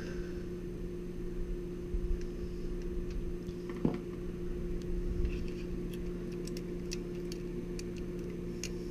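Small scattered clicks and taps of hands and a screwdriver working wires at a switching power supply's screw terminals, over a steady electrical hum.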